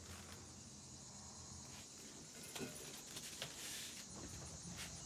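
Quiet background with a faint, steady high-pitched chirring of crickets and a few soft knocks.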